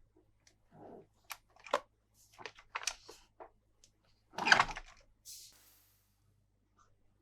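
Hands handling a plastic toy and its packaging: scattered light clicks and short rustles, with one louder rustle about halfway through, then it falls quiet.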